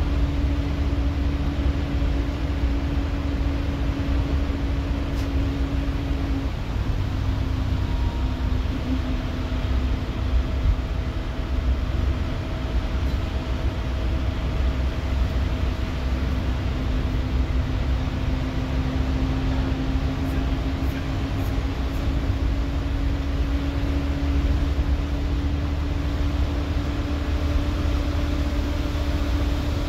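Scania K230UB Omnilink bus running, heard from inside the rear of the saloon: a steady low drone with a whine that drops slightly about six seconds in and then slowly climbs back up.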